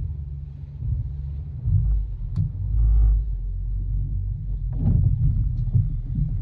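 Outboard motor driving a small motorboat under way: a steady low rumble, with a few short knocks now and then.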